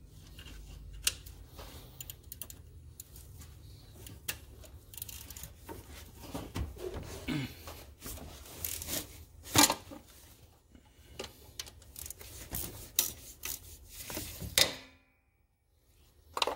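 Socket ratchet on a long extension loosening the bolt that holds the throttle-body bracket on an engine: scattered metal clicks and knocks of the tool, with sharper knocks about one second in, about halfway through and near the end.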